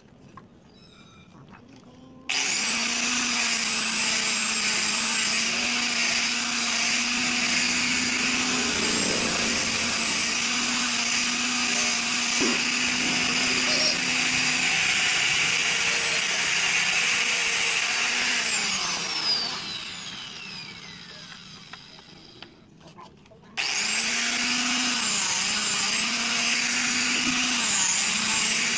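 Handheld angle grinder with an abrasive disc switched on about two seconds in and running with a loud, high steady whine while grinding wood. It is switched off and its whine falls as the disc spins down, then it is started again, its pitch dipping briefly as the disc bears on the wood.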